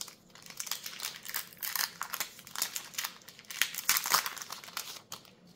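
Foil wrapper of a Magic: The Gathering collector booster pack crinkling as it is handled and opened: irregular crackles, loudest about four seconds in, thinning out near the end.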